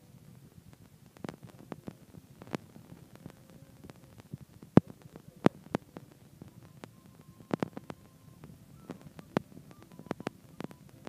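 Audio dropout instead of the guitar music: a faint low hum with scattered sharp clicks and pops, the loudest about five seconds in.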